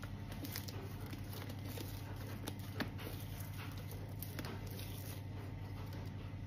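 Thick slime being squeezed, stretched and poked by hand: scattered small sticky clicks and pops, the sharpest nearly three seconds in, over a steady low hum.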